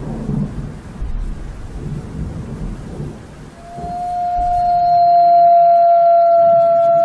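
Thunder and rain, then a wolf howling: one long howl held on a steady pitch, starting about halfway through and the loudest sound here.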